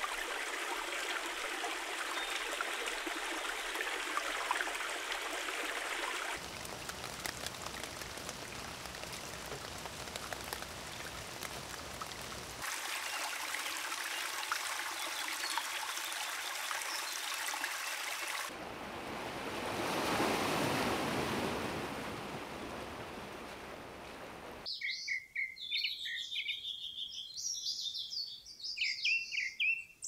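Steady water noise, its sound changing abruptly several times as clips are cut together and swelling briefly about two-thirds through. In the last five seconds it gives way to songbirds chirping, many short high calls.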